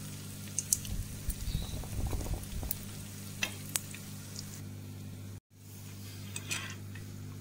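Bourek pastry rolls frying in hot oil in a pan, a steady sizzle with a few sharp clicks of a fork against the pan as they are turned. The sound drops out for a split second about five seconds in, then the sizzle carries on.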